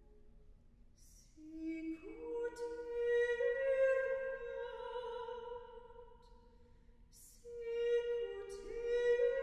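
Women's choir singing in four upper-voice parts: after a hushed start, the voices come in one after another on a soft hissed 's' and build into a held chord that swells and then fades. Near the end a new phrase begins the same way, with voices again entering one by one.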